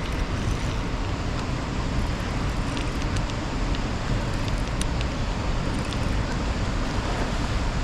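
Steady low rushing noise of wind buffeting the microphone outdoors, with a few faint clicks.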